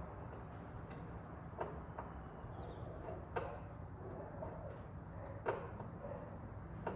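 Scattered light clicks and ticks of a Phillips screwdriver working the screws out of a 1975 International Scout II's interior door panel, about five sharp ticks a second or so apart, over a steady low hum.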